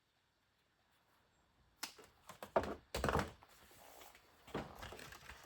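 Near silence for a little under two seconds, then a run of irregular clicks and knocks from hands handling the wire lead and heat-shrink tubing.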